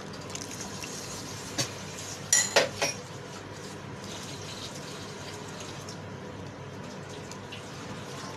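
Cooking utensils clinking sharply against a pot a few times about two and a half seconds in, after one lighter click, as cornflour is added to a simmering sauce, over a steady low hiss of the pot while it is stirred.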